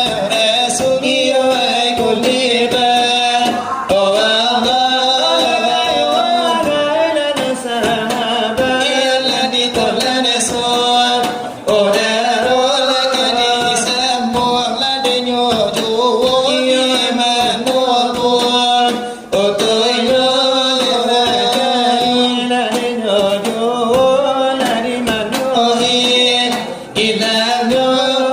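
Selawat dulang: male voices chanting long, ornamented devotional melody lines, accompanied by rhythmic finger-beating on a brass tray (dulang). The singing breaks off briefly a few times between phrases.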